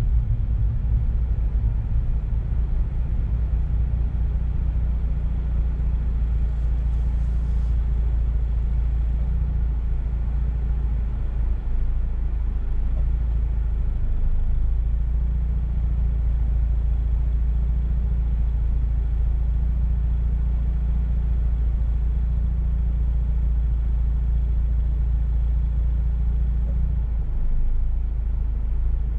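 Mazda RX-8's rotary engine idling, heard from inside the cabin as a steady low rumble.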